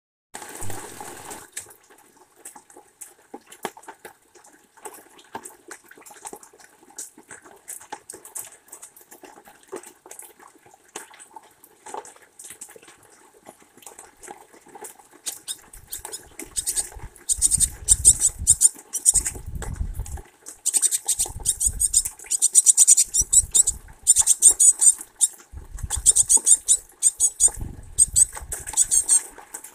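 Light ticking of rain drips, then from about halfway loud bursts of scratching, rustling and knocking as a great tit works in the sunflower seeds of a wooden tray feeder right by the microphone.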